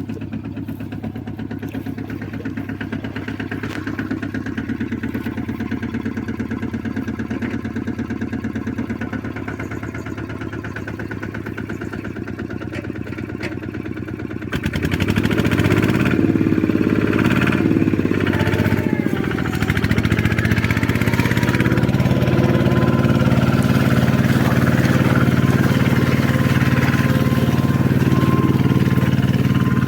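An engine running steadily at a low speed, then revving up about halfway through and running on louder and faster.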